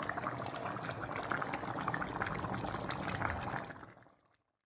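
Chicken curry bubbling in the pan: a steady crackle of small pops that cuts off suddenly near the end.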